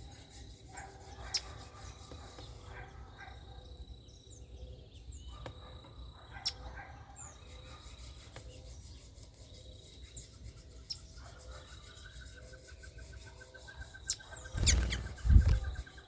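Small birds giving short, high chirps now and then. About eleven seconds in a steady, rapid pulsing trill starts, and near the end comes a loud, low rustling thump, the loudest sound of the stretch.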